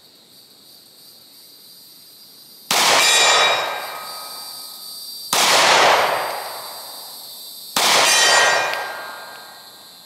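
Three shots from a Glock 43X 9 mm pistol, about two and a half seconds apart, each answered by a steel target ringing as it is hit and dying away over a second or so.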